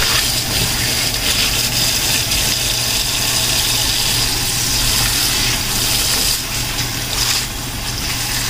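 Kitchen tap running in a steady stream into a stainless steel bowl of shredded cabbage in a steel sink, with hands turning the wet cabbage over. A steady low hum runs underneath.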